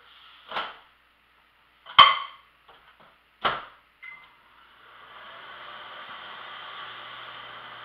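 A microwave oven being set going: a few knocks and a loud sharp clack about two seconds in, a short beep about four seconds in, then the oven starts running with a steady whir and low hum.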